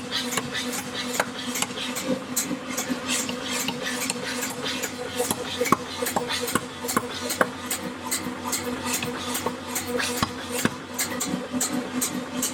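Nazel 4B pneumatic power hammer running, its ram striking about three times a second over the steady hum of the motor and compressor, with a few heavier knocks.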